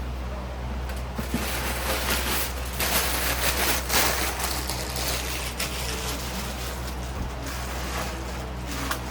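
Packing paper and cardboard rustling and crinkling in irregular bursts as a box is unpacked, loudest around three to four seconds in, over a steady low hum.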